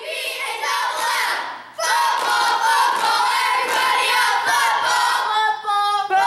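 A squad of young girl cheerleaders chanting a cheer together in loud unison, the chant getting louder about two seconds in.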